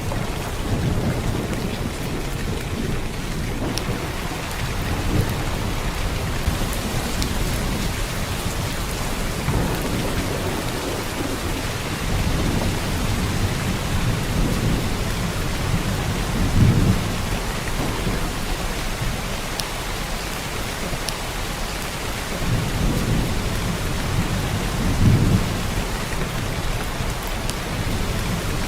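Heavy rain pouring steadily, a dense even hiss of drops, with a few brief deep thuds or rumbles, the clearest about halfway through and again near the end.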